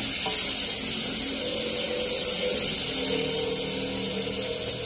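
Garlic and onion sizzling in hot oil in a cooking pot as they are sautéed and stirred with a wooden spatula, a steady hiss, with a faint steady hum underneath.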